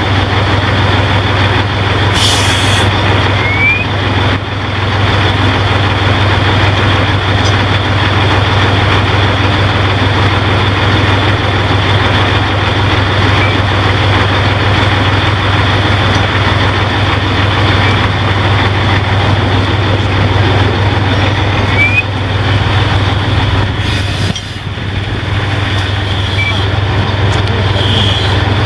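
Fire engine's diesel engine running steadily at close range, a loud low hum. Two short hisses of air break in, about two seconds in and near the end.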